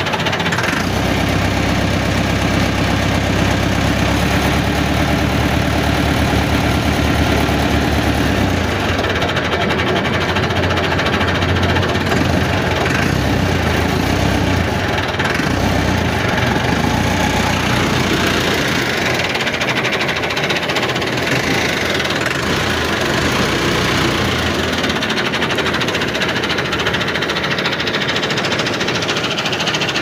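A loud, steady engine running with a rapid knocking rattle. Its low rumble drops away about 24 seconds in, leaving a thinner, higher running sound.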